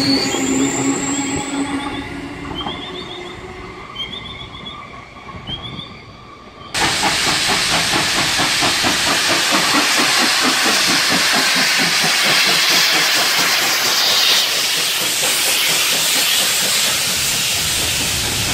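Double-deck electric suburban train pulling away, its motors whining high and the sound fading. About a third of the way in, a steam locomotive takes over, approaching with a loud hiss and a fast rhythmic beat. Near the end another electric train passes close by.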